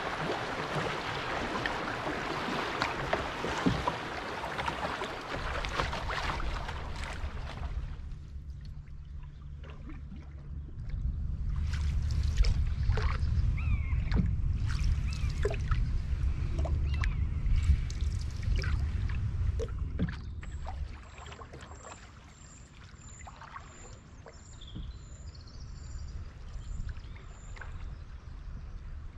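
River water rushing past the bow of a moving canoe. This is followed by a low rumble over which a common buzzard calls a few times, short high gliding cries.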